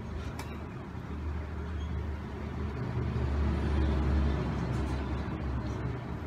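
A low, steady rumble that swells about three to four seconds in, with a faint click near the start.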